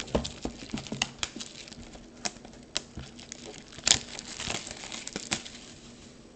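Plastic wrapping on a trading card box crinkling and crackling as it is torn open by hand, in an irregular run of sharp crackles, the loudest about four seconds in.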